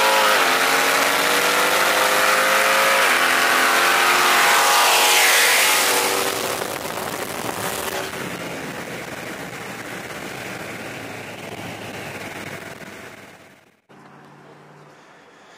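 Dodge Challenger's V8 at full throttle, climbing in pitch through the gears with two quick shifts, with wind and road rush. From about six seconds in the sound fades as the car pulls away, then cuts off near the end, leaving a quieter low steady rumble.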